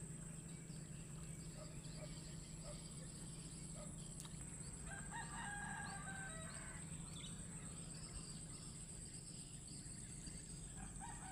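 A rooster crowing faintly about five seconds in, over a steady high whine and a low hum.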